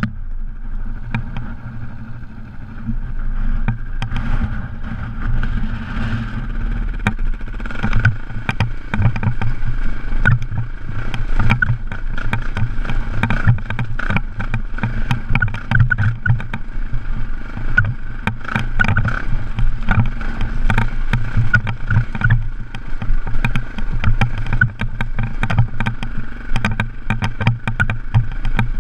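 KTM off-road motorcycle engine running steadily while riding over a loose, rocky gravel track, with many sharp knocks and rattles from stones and the bike jolting over them.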